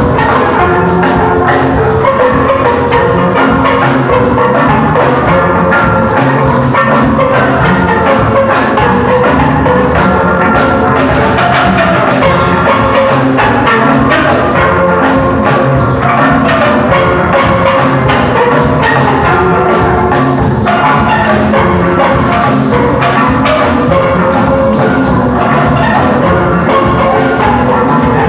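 Steel pan orchestra playing a tune: many steel pans struck in quick, continuous runs of notes, with bass pans and a drum kit keeping the beat.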